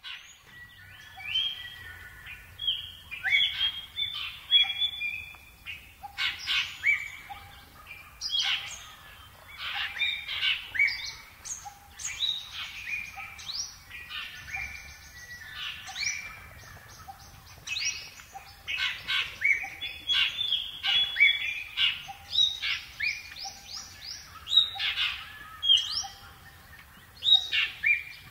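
Several birds singing and calling together, a dense chorus of quick chirps, trills and whistled glides, over a faint low background rumble.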